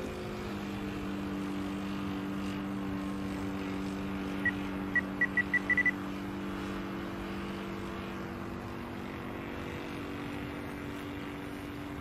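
Engine of a Ben Buckle Super Buccaneer RC model plane droning steadily in flight at reduced throttle. Between about four and a half and six seconds in comes a quick run of about seven short high beeps, like a radio transmitter's trim button being pressed.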